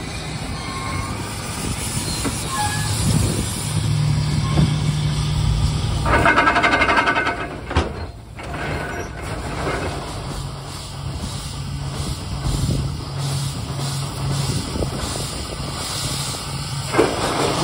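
Bucyrus-Erie 50-B steam shovel's steam engines running as the shovel works, with a low pulsing rumble. Loud blasts of steam hiss break in about six seconds in and again near the end.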